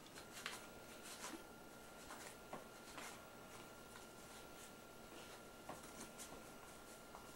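Near silence, with faint scattered clicks and rustles of poker chips and money being counted out by hand, over a faint steady high electrical tone.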